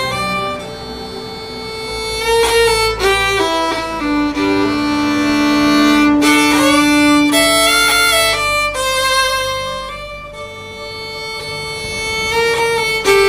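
Background music: an instrumental fiddle break in a folk song, the fiddle playing a melody with one long held note about halfway through.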